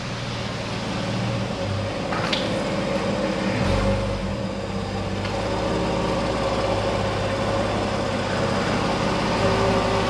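Porsche 911 (991-generation) flat-six engine idling steadily, with a brief deeper swell about four seconds in.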